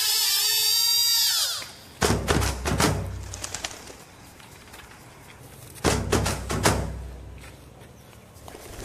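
Two bursts of fluttering whooshes with low thuds from a swung wooden staff, about four seconds apart, each fading over a second or so. Before them, a warbling electronic tone sweeps down and stops about a second and a half in.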